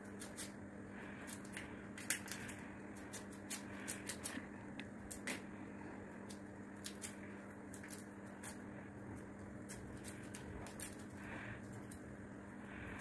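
Dog eating noodles from a foil tray: irregular small clicks and smacks of chewing and mouthing the food, over a faint steady hum.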